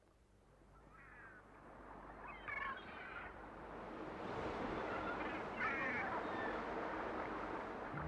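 A sound-effects background fading in: an even rushing noise of wind or surf that swells steadily, with short bird cries, each a quick run of falling notes, heard three times over it.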